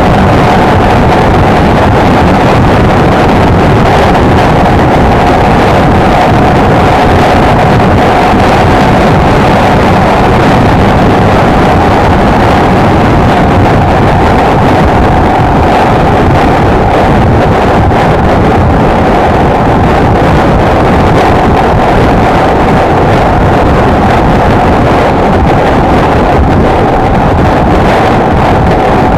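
Honda XLR125R motorcycle's single-cylinder engine running at a steady cruising speed, with heavy wind rush on the microphone. A steady hum holds above the noise without rising or falling.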